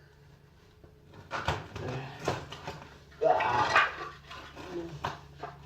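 Pieces of wooden board being picked up and handled: a few sharp knocks and clatter, with a short scraping rush about three seconds in, over a steady low hum.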